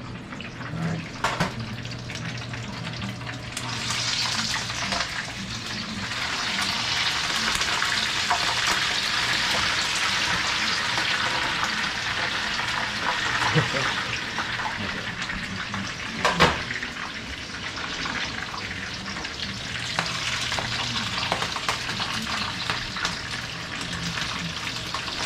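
Wet shrimp frying in hot oil: a steady sizzle that swells about four seconds in, with a few sharp pops from the water on the shrimp spattering in the oil, the loudest about sixteen seconds in.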